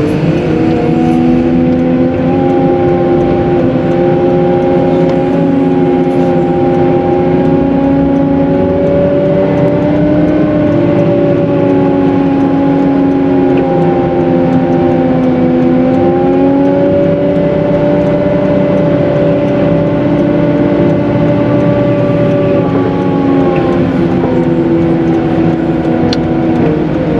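Cat 906M compact wheel loader running steadily while plowing snow, with a droning whine whose pitch drifts up and down several times as the machine works.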